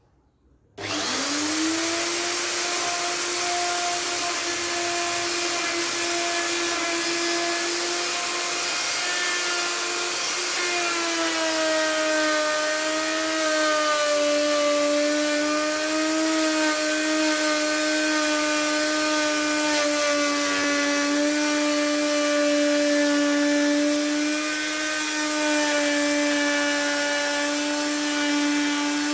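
Power wood-carving machine starting about a second in and spinning up to a steady high whine over a hiss of cutting wood. Its pitch drops slightly about ten seconds in and holds there.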